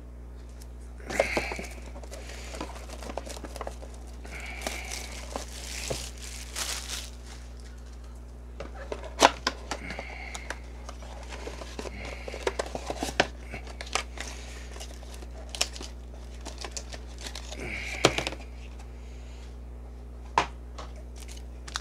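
Plastic and cardboard packaging of a trading-card box being opened by hand: irregular crinkling and tearing with scattered sharp clicks and taps, over a steady low hum.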